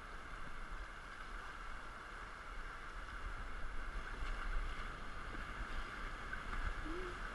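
Fast river current rushing past an inflatable raft: a steady hiss of moving water, with low wind rumble on the microphone.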